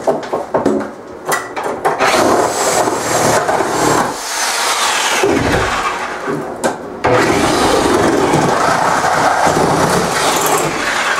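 Reciprocating saw cutting through wooden stud framing, running in short stop-start runs at first, with a brief pause about two thirds of the way through, then one long continuous cut.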